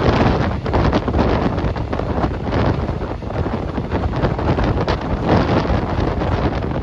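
Heavy wind buffeting the phone microphone over the steady running noise of a train, with irregular clatter.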